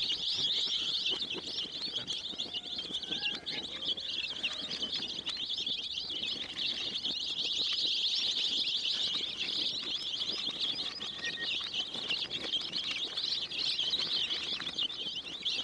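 A large flock of baby chicks peeping all at once: a dense, unbroken chorus of many overlapping high chirps.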